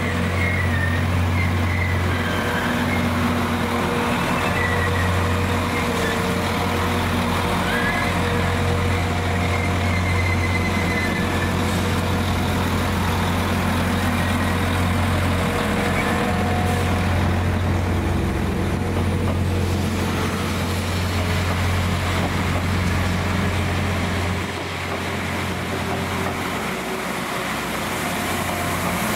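Northern class 195 diesel multiple unit moving slowly past, its diesel engines giving a steady low drone, with a few brief high squeals in the first few seconds. The drone weakens about 25 seconds in.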